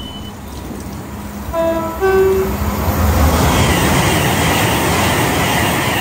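A train's two-tone horn gives two short notes about a second and a half in, a lower one then a higher one. Straight after, an Elizabeth line Class 345 electric train runs in past the platform, its noise building loudly and stopping abruptly at the end.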